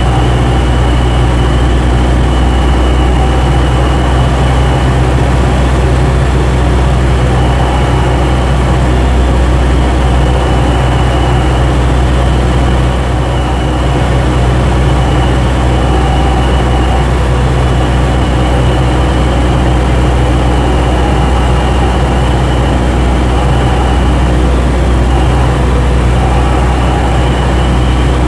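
Cessna 172's four-cylinder piston engine and propeller droning steadily, heard inside the cabin, with a brief slight dip in level about halfway through.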